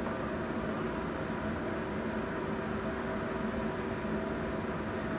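Steady whirring hum of a fan motor running, with a couple of faint light taps about half a second in.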